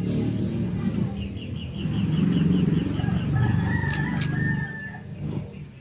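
A rooster crowing once, one long call starting about three seconds in, over a steady low rumble.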